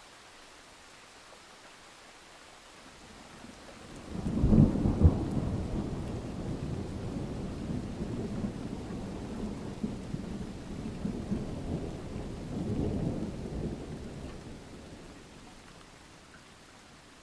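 Steady rain, then a thunderclap about four seconds in that rolls on as a low rumble for about ten seconds, swelling once more before it dies away.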